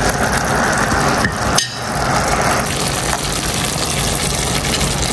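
Pecans in a caramelizing brown sugar, butter and honey syrup sizzling and bubbling in a pan, with the clatter and scrape of stirring against the pan.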